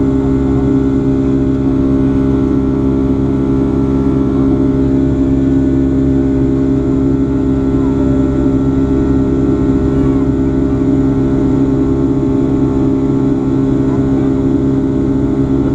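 Steady jet engine and airflow drone heard inside the cabin of a Boeing 757-300 in flight, a constant loud hum.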